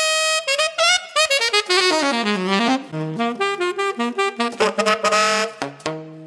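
Saxophone playing a fast, jazzy run of quick notes with scooped and bent pitches, sliding down in pitch about halfway through and ending on a held low note that fades out.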